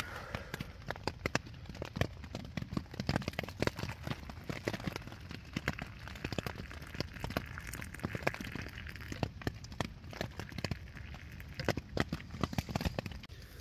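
Rain pattering on a tent in irregular taps. In the middle, boiling water is poured from a camping kettle into a steel mug.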